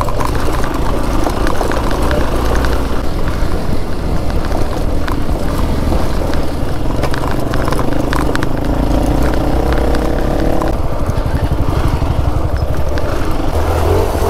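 Motorcycle engine running as it is ridden over a rough off-road trail, with short knocks and rattles from the bumpy ground. A higher engine note holds for a few seconds past the middle, then drops away suddenly.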